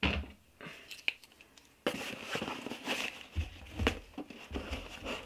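Cardboard shipping box being torn open by hand: tearing and rustling of cardboard in fits and starts. It is quieter about a second in, then runs on steadily with low knocks of handling in the second half.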